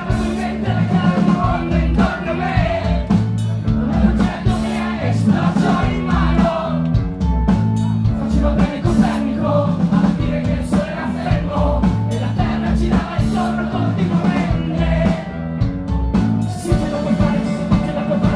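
Rock band playing live through a club PA: electric guitars, bass and a drum kit keeping a steady beat, with the lead singer singing over them.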